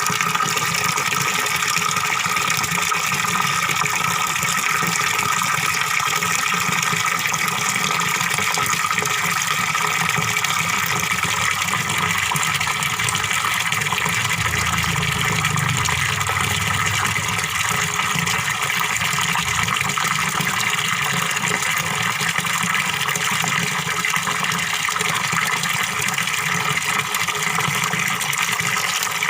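Small waterfall pouring into a fish pond: a steady rush of splashing, gurgling water, with a brief deeper swell about halfway through.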